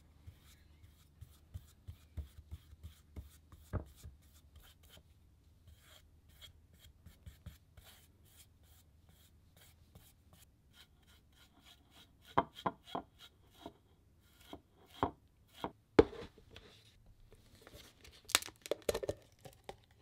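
A flat tool spreading thick white paint across a wooden board: a run of light ticks and scrapes, with several sharper knocks against the board in the second half and a brief flurry of scraping near the end.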